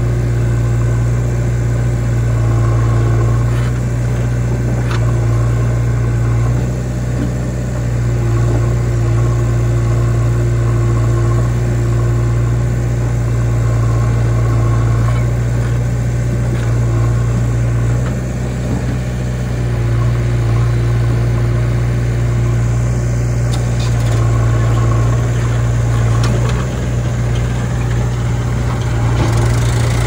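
Diesel engines of a JCB 3DX backhoe loader and a Mahindra 295 DI Turbo tractor running close by: a loud, steady deep hum whose level swells and eases slightly every few seconds as the backhoe works, loading soil into the tractor's trolley.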